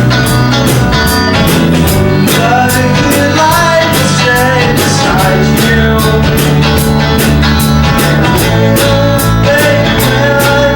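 Rock band playing: electric guitar over bass and a steady drum beat, with a gliding lead melody line most prominent about two to five seconds in.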